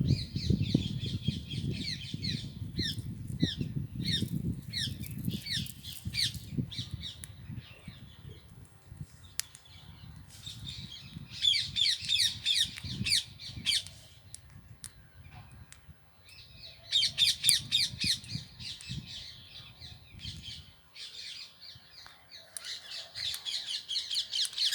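Rose-ringed (Indian ringneck) parakeets giving rapid shrill squawking calls in bursts, with quieter gaps between the bursts.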